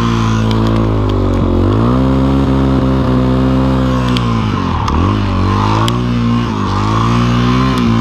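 Dirt bike engine working through deep snow, its pitch climbing, holding, then dropping back about three times as the throttle is opened and eased.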